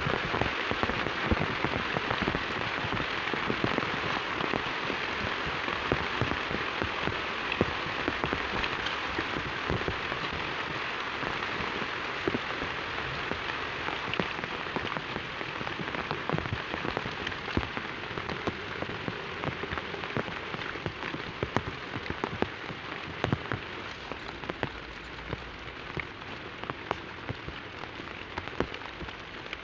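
Heavy rain falling steadily, with many close drops pattering sharply on a hard surface, easing off a little toward the end.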